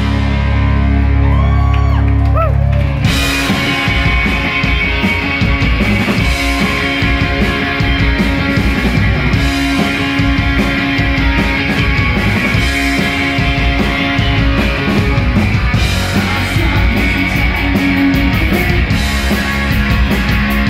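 Live rock band playing loud, with electric guitars, bass guitar and drum kit. It opens on a held low chord with the drums out, and the drums crash back in with the full band about three seconds in.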